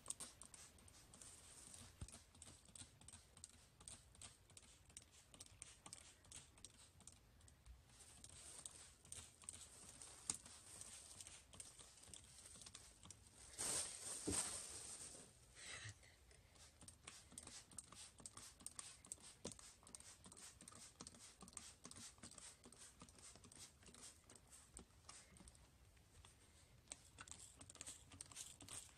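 Near silence: faint scattered ticks and crackles, with one brief louder rustle about halfway through.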